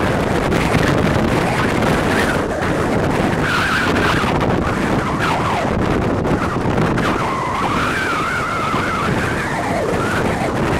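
Steady loud noise with wind on the microphone. A thin, wavering high tone drifts in and out over it, clearest in the second half.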